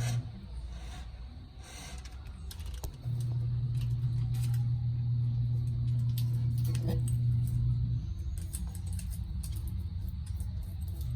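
A steady low machine hum that cuts out near the start, comes back abruptly about three seconds in and drops lower about eight seconds in, with a few light clicks and clinks over it.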